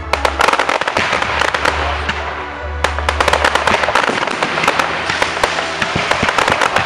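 Fireworks crackling in dense rapid volleys, a fresh wave starting sharply at the outset and another about three seconds in, over steady background music.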